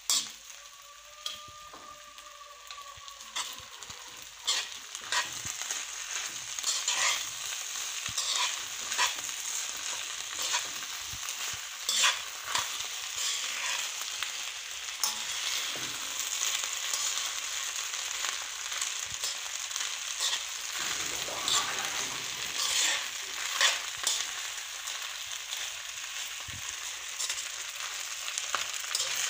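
Rice frying in a pan, sizzling steadily, while a spoon stirs it and scrapes and knocks against the pan at irregular intervals.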